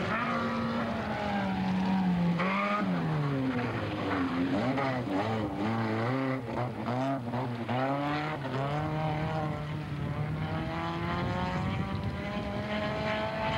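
Rally car engine revving hard, its pitch rising and falling quickly several times through the middle, then climbing steadily near the end.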